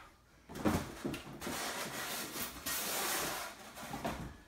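Foam packing pieces and a cardboard box being handled during unpacking: a run of rubbing, scraping and rustling with a few sharper knocks, loudest about three seconds in.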